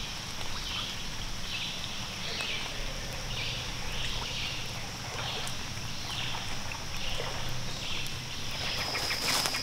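Swamp forest wildlife ambience: a steady high-pitched insect drone, with a short falling chirp repeating about every two-thirds of a second. Scattered faint clicks run underneath, and the drone swells louder near the end.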